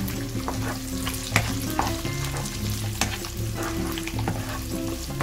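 Shrimp, diced bacon and sliced mushrooms sizzling in a nonstick frying pan while being stirred with a plastic spatula. The spatula clicks sharply against the pan a few times.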